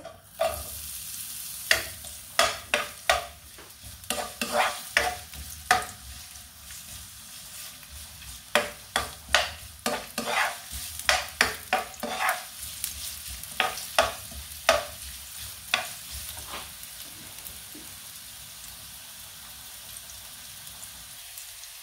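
Ginger sizzling in a hot pan, with a utensil repeatedly clicking and scraping against the pan as it is stirred. The stirring stops about two-thirds of the way through, leaving a steady sizzle.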